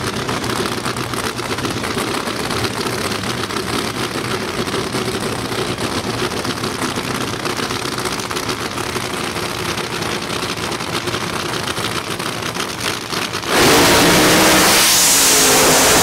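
A drag-racing funny car's engine idles with a rapid, pulsing rumble on the starting line. About thirteen and a half seconds in it goes to full throttle for the launch, suddenly much louder.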